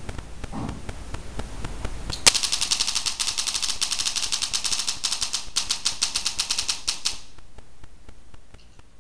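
A sharp click, then a rapid, even run of crackling clicks lasting about five seconds, with a brief break partway through, that cuts off suddenly.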